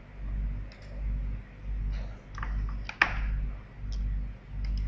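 Computer mouse clicking a few times, one click about three seconds in louder than the rest, over a low hum that swells and fades about once a second.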